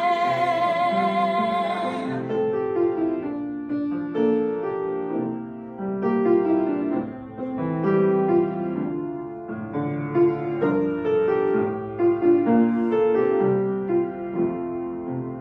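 Piano accompaniment playing an instrumental interlude of a hymn in steady chords. A woman's held sung note with vibrato ends about two seconds in.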